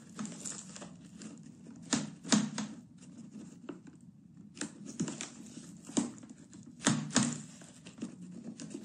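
Handling noise as ground cinnamon is measured out with a dessert spoon: irregular sharp clicks and taps, about eight of them, with crinkling rustles between.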